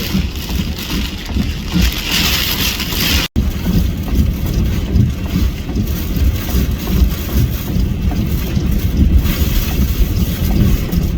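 Hurricane-force wind buffeting the microphone in a heavy, gusting rumble with a hiss over it, from Hurricane Ian's eyewall. The sound drops out for an instant about a third of the way in, at an edit.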